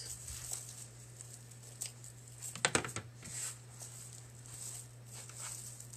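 Light rustling of dry raffia being handled and tied, with a short clatter of metal scissors set down on a tabletop a little under three seconds in, over a low steady hum.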